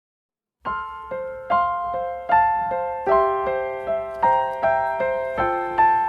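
Background music: a keyboard melody of evenly spaced, decaying notes, about two or three a second, starting just over half a second in.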